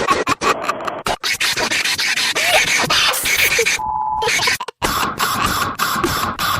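EAS-style alarm audio of harsh, heavily distorted noise chopped into rapid stuttering cuts, with a short beep about four seconds in and a brief dropout just after it.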